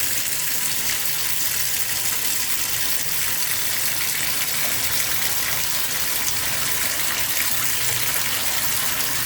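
Bathroom tap running steadily: an even rush of water pouring into the fixture below.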